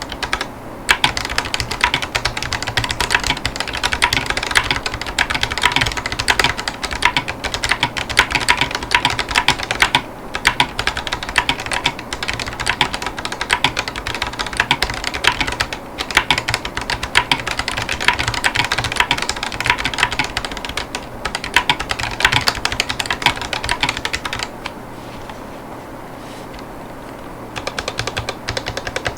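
Typing on a Ducky One 3 Aura mechanical keyboard with Drop Holy Panda tactile switches and silicone Cherry-profile keycaps: a dense, steady stream of keystrokes. The typing stops for a few seconds near the end, then starts again.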